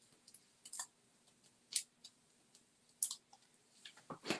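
Light, sharp clicks and taps of small die-cut paper pieces being handled and pressed down onto cardstock, a few of them roughly a second apart, the loudest near the end.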